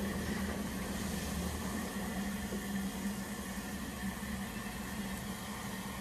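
LG front-load washing machine's direct-drive motor turning the drum in a wash cycle: a steady hum with a faint high whine, running smoothly without jerking or knocking now that its faulty Hall sensor has been replaced.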